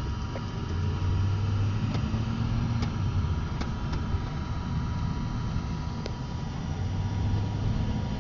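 Engine and road noise heard inside a moving car's cabin: a steady low drone that swells about a second in and again near the end, with a few faint ticks.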